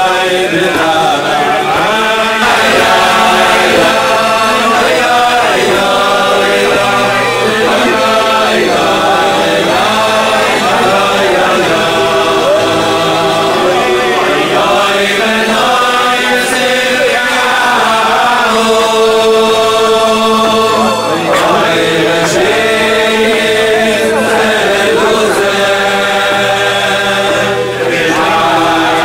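Men's voices singing a Hasidic melody together, continuous and steady in loudness.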